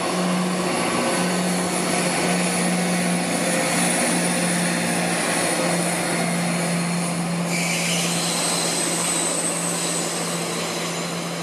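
CrossCountry Class 170 Turbostar diesel multiple unit, its underfloor diesel engines running with a steady low drone.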